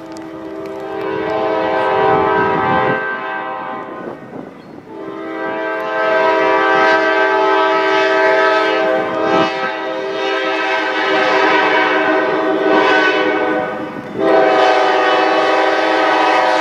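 Norfolk Southern GE B32-8 diesel locomotive 536 sounding its multi-note air horn in long blasts as it approaches. The horn drops out briefly about four seconds in, holds a long blast, then pauses again about fourteen seconds in before sounding once more.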